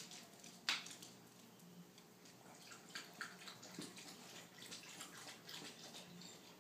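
Faint, scattered scratches and taps of kittens' claws and paws as they climb about a carpeted cat tower, with one sharper click about a second in.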